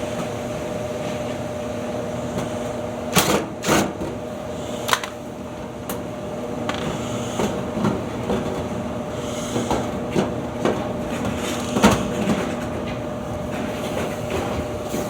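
Toshiba ED-608 washer-dryer running with a steady hum, several sharp knocks over it. The owner traces its abnormal noise to a worn fan bearing.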